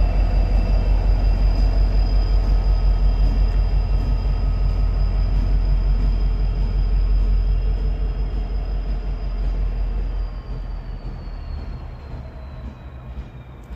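EMD SD60M diesel-electric locomotive, a turbocharged 16-cylinder EMD 710 engine, running with a heavy, pulsing low rumble and a high, steady whine. About ten seconds in, the whine slowly drops in pitch and the sound fades.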